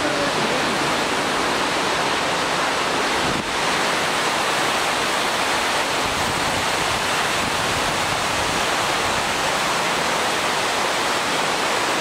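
Indoor airport waterfall feature: a steady, even rush of falling water.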